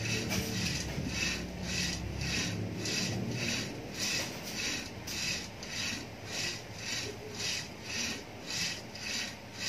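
Rope rasping over an overhead shoulder pulley as it is hauled back and forth for arm-rehabilitation exercise, in even strokes nearly twice a second.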